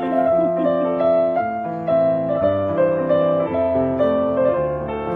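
Piano music playing a melody of held notes that change about once a second.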